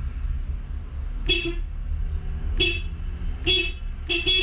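Acura Integra (DC4) horn giving four short honks as the bare blue horn wire from the steering column is touched to ground, showing that it is the right wire.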